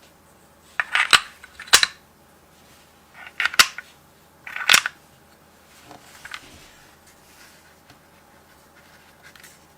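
Crayons in a crayon puzzle box being pushed down and shifted, giving about four sharp clicks and short rattles in the first five seconds, then a few faint taps.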